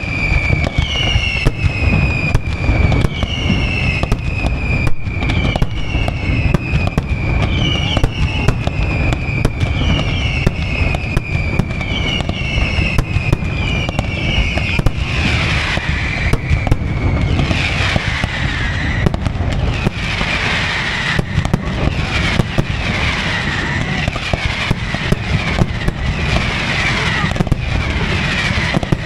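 Aerial fireworks display: a string of whistling shells, each a falling whistle, about one a second, among sharp bangs over a low rumble. From about halfway many whistles overlap with crackling.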